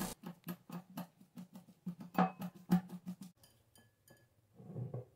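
Wire whisk beating mashed ripe banana in a glass bowl: a quick, even tapping of the wires against the glass, about four to five strokes a second, that stops about three seconds in. A brief softer scrape follows near the end.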